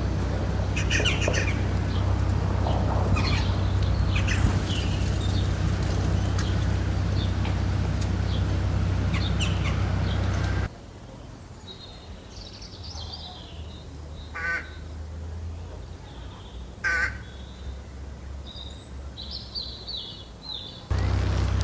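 Birds chirping outside, with two short, harsh calls in the second half. A steady low rumble sits under the first half, stops suddenly about halfway through, and comes back near the end.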